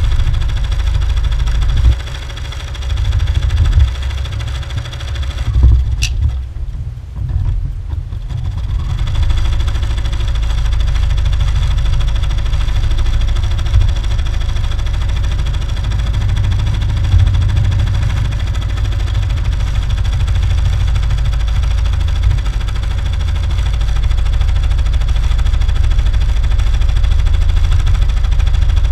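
Home embroidery machine running a cutwork pass with a cutwork needle: a steady mechanical hum with the needle working through the fabric. Uneven for the first several seconds, with a brief sharp high sound about 6 seconds in, then even.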